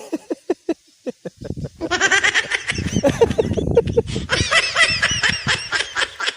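People laughing hard: a string of short, quick laughs, then a longer, louder run of laughter from about two seconds in.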